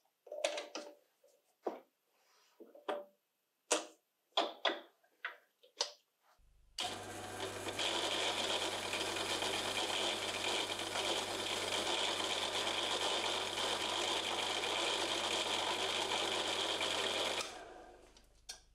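Metal clicks and knocks as a power-tool armature is fitted and clamped in a lathe chuck. About six seconds in, the lathe starts with a steady low hum, and an abrasive pad held against the spinning armature gives a loud, even scrubbing hiss. The hiss stops near the end while the lathe keeps running faintly.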